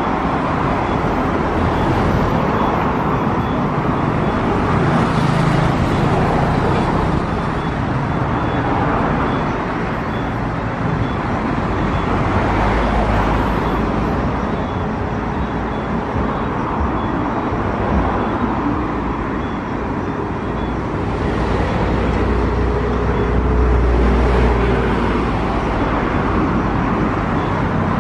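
Jet airliner engines running at low taxi power: a steady, continuous roar with a deep rumble that swells twice, about halfway through and again near the end.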